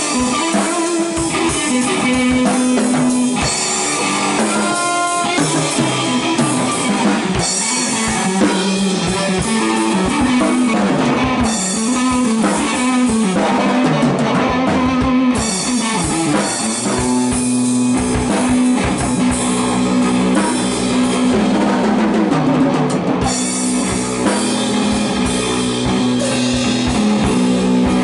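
Electric guitar through a small combo amp and a drum kit playing a loud, heavy blues jam. The guitar settles into a repeating low riff for the last third.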